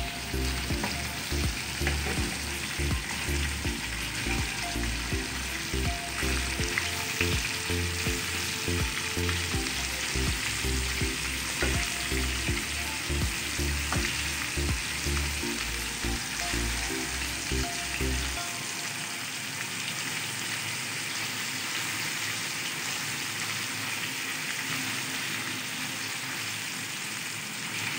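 Chicken pieces frying in hot oil in a steel pan, a steady sizzle, with occasional clicks of metal tongs against the pan as the pieces are turned. Underneath, a low pulsing sound runs for the first eighteen seconds or so, then stops.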